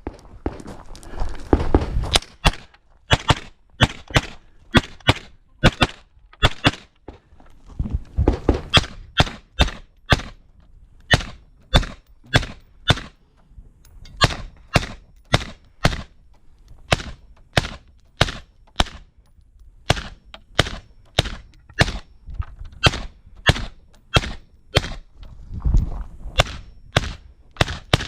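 Suppressed AR-15 rifle firing a long string of rapid shots through an all-aluminium homemade (Form 1) suppressor, about one to two shots a second, with a few short pauses between groups.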